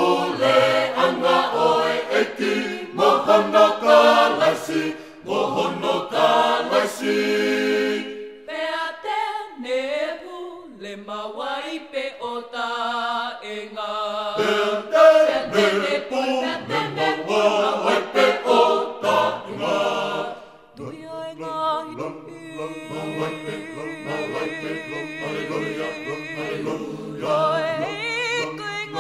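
Unaccompanied Tongan gospel vocal group singing a hymn in harmony, several voices together, holding long chords in the last third.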